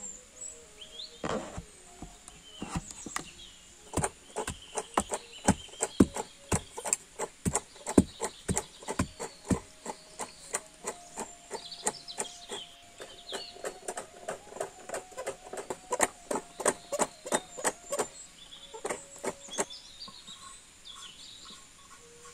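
Wooden pestle pounding sesame seeds in a wooden mortar: a long run of regular dull knocks, about two to three a second, stopping near the end.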